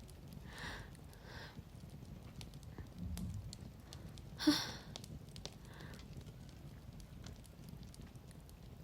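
Low ambience of a crackling fire, faint scattered pops over a steady low rumble, with a woman's soft breaths early on. A short, sharp breath or sob about four and a half seconds in is the loudest sound.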